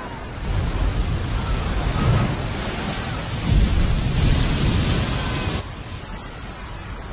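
Tsunami wave breaking and surging ashore: a loud rushing noise over a deep rumble. It starts about half a second in and falls away suddenly about five and a half seconds in.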